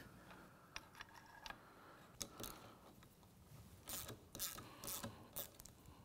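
Hand ratchet clicking in quick strokes as a small bolt is run into the engine's side cover, starting about four seconds in, after a few faint clicks and taps of the part being set in place.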